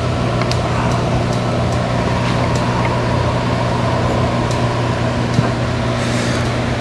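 Steady hum of an electric shop fan, with a few faint metallic clicks scattered through it as engine parts are handled.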